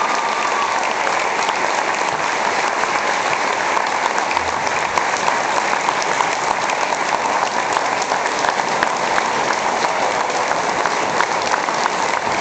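A banquet-room audience applauding, many hands clapping in a steady, unbroken stream.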